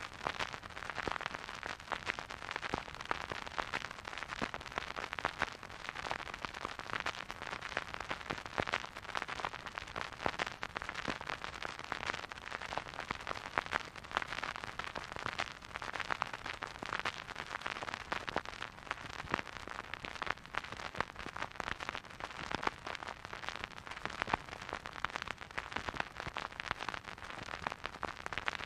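Vinyl record surface noise from a spinning record player playing no music: a steady soft hiss with dense crackles and pops.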